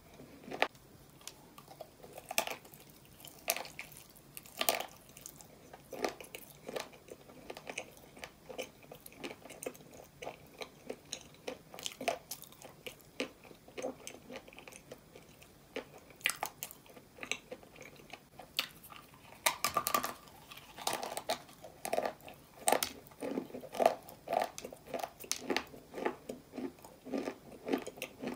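A person chewing and crunching dry chunks of edible clay: an irregular run of crisp crunches and crackles, busier and louder about two-thirds of the way in.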